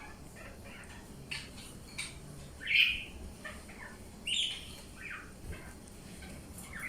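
Cockatiel giving short scattered chirps and squawks, with two louder calls about three and four and a half seconds in.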